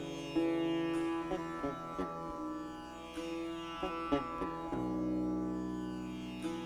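Background music: an Indian classical-style melody on a plucked string instrument over a steady drone, notes plucked and sustained.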